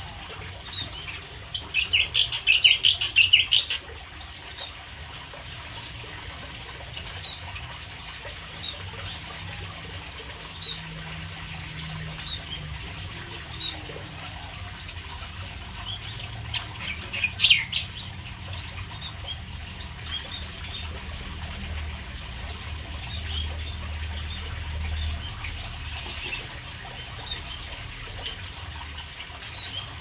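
Canaries chirping, scattered short high calls throughout, with a dense burst of rapid chirping about two seconds in and another around seventeen seconds. A steady running-water sound continues underneath.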